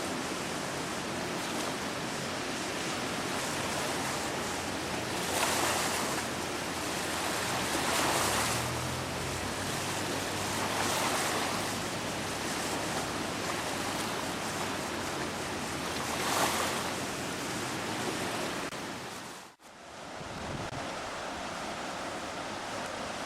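Steady rush of the Thornapple River in flood pouring through a dam, with wind buffeting the microphone and swelling in gusts every few seconds. The sound drops out briefly about nineteen seconds in.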